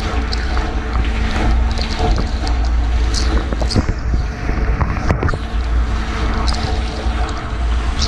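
Portable dishwasher running its wash cycle, heard from inside the tub: a steady low motor-and-pump hum under the hiss of water spraying and splashing on the racks and walls, with scattered sharp ticks of droplets striking.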